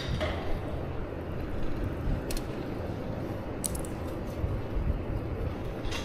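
Steady low rumble of wheels rolling over stone block paving, with a few short high clinks about every one to two seconds.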